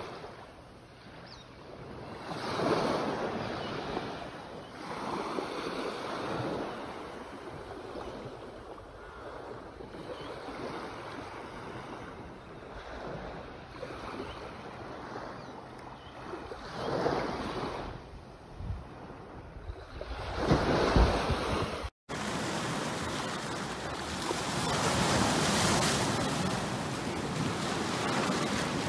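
Small waves washing up on a sandy beach, the surf swelling and fading every few seconds, with some wind on the microphone. About three-quarters of the way through it cuts to a steadier, louder sound of waves breaking over rocks.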